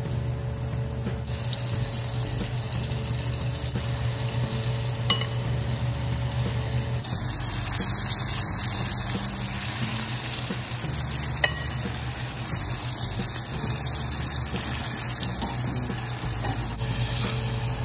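Flour-coated okra deep-frying in hot oil in a stainless steel saucepan: a steady sizzle over a low hum, with two sharp metal clicks from the tongs against the pan.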